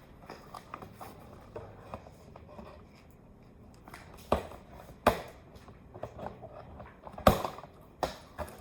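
Small objects being handled, with light clicks and scrapes throughout and four sharp knocks in the second half, the third the loudest.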